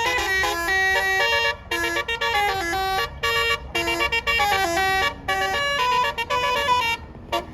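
A bus's basuri musical air horn playing a quick tune: a run of stepped, sustained horn notes with short breaks between phrases, dipping briefly near the end.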